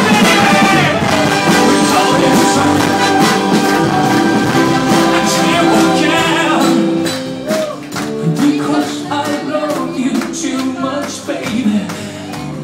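Live big band with horns and backing vocalists playing a pop song behind a male lead singer. About seven seconds in the full band drops back to a quieter passage, leaving the voice over light percussion.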